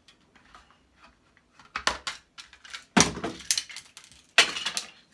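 Screwdriver prying apart the housing of a small electronics box: light clicks and scrapes, then three loud clattering cracks about two, three and four and a half seconds in as the case comes apart and the circuit board is pulled out.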